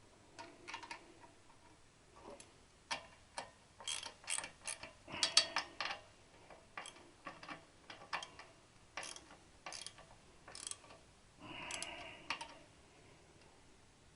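Socket ratchet clicking in short, irregular strokes while tightening a nut, with a longer rasping run of clicks near the end.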